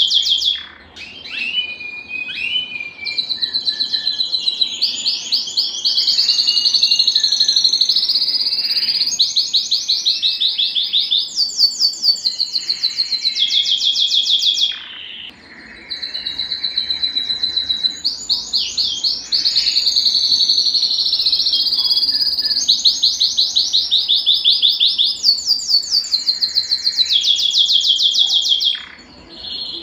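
Domestic canary singing a long song of fast trills and rolls, each phrase a run of rapid repeated notes, some sweeping down in pitch. The song breaks off briefly about a second in, about halfway through and near the end.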